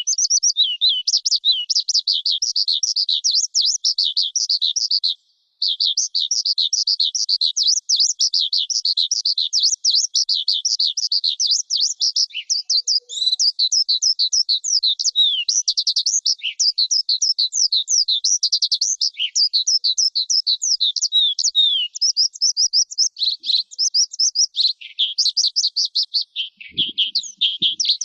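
Skylark singing a long, unbroken song of rapid, high, sweeping trilled notes, with one short pause about five seconds in.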